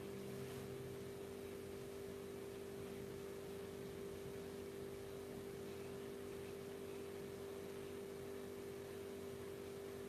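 Faint steady electrical hum, with several fixed tones under a light hiss, that does not change.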